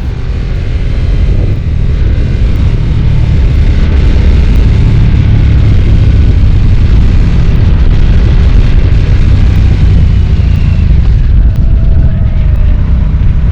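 Harley-Davidson Nightster's 975 cc liquid-cooled 60-degree Revolution Max V-twin running on the move, a deep steady rumble that builds over the first couple of seconds and then holds.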